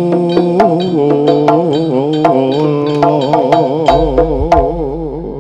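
Jaranan gamelan music accompanying a barong dance: a melody that wavers up and down in pitch over sharp, irregular drum and metal strikes. A deep low tone comes in near the end.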